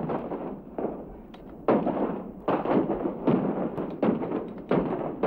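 Artillery barrage: heavy booming shots, about one a second, each sharp at the start and dying away quickly.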